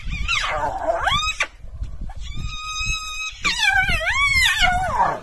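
A pack of wild carnivores calling as it feeds at a carcass. First comes a falling-then-rising whoop, then a long steady held call, then a loud wavering call that dips and rises, over a low rumble.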